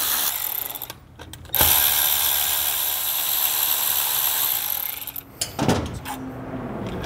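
Cordless electric ratchet spinning out the bolts that hold the spider on a clutch: a short run of its motor, a brief pause, then a longer steady run of about three seconds.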